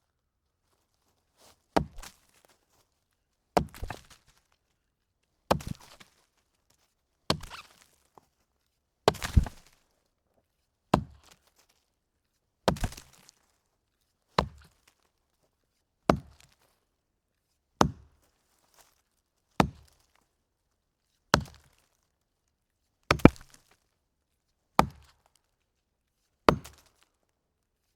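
A log being chopped with an axe: a steady series of sharp wooden strikes, about one every two seconds, fifteen in all. Several strikes are followed by a smaller second knock.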